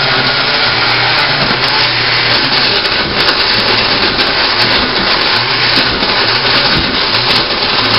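Countertop blender with a glass jar running steadily at speed, puréeing raw cucumber, tomatoes and other vegetables with water into a soup.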